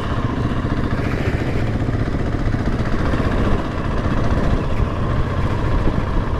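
Trail bike engine running steadily at low revs while riding, with a noisy rumble mixed in.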